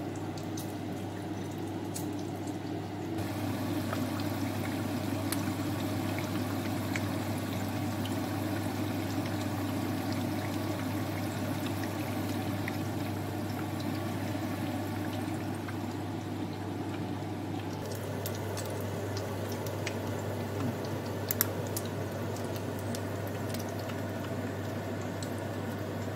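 Vegetarian nems (spring rolls) deep-frying in hot oil in a pan: steady sizzling and bubbling, with scattered small crackles that come more often in the second half.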